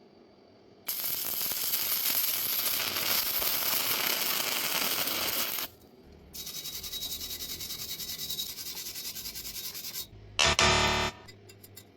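Electric arc welding: a steady crackling hiss for about five seconds, then after a short pause a second run of the arc with a quick regular pulsing, followed by a brief louder burst near the end.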